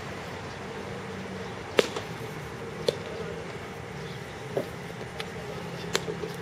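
Several sharp cracks of baseball bats striking balls in batting practice, the loudest about two seconds in, over a steady background hum.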